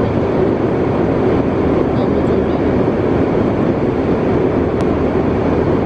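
Steady cabin noise of a jet airliner in flight: a loud, even rush of air and engine drone that does not change. A faint click sounds near the end.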